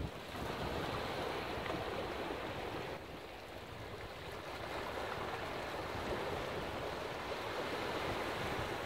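Sea waves washing in and splashing among the large boulders of a rock breakwater, a steady rushing that eases off about three seconds in and builds again.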